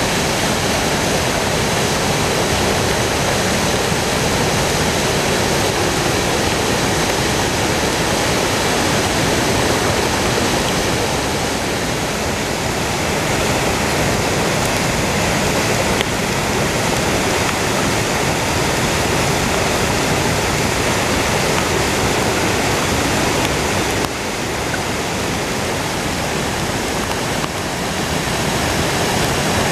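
Muddy floodwater of a storm-swollen creek rushing and churning over rocks, a loud steady rush of water. It dips slightly in level about three-quarters of the way through.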